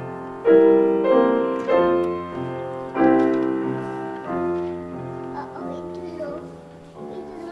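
Young Chang grand piano played four hands by an adult and a child: loud chords struck about half a second, three seconds and four and a half seconds in, each ringing and fading away, then softer playing near the end.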